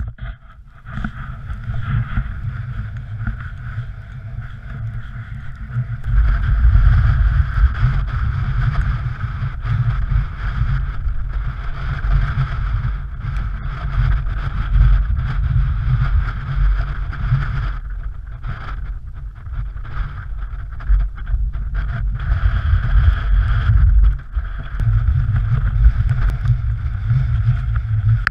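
Gusty wind buffeting a GoPro Hero3's microphone: a heavy rumble that swells and eases, growing stronger about six seconds in.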